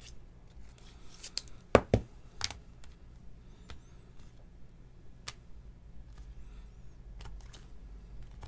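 Hands handling trading cards and a clear plastic card holder: soft rustling and tapping, with two sharp clicks close together about two seconds in and a few lighter clicks later.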